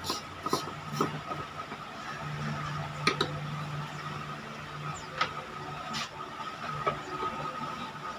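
Light clicks of a light bulb being handled and twisted into a plastic lamp holder, then a few more scattered clicks, over a steady low hum with a faint high-pitched tone.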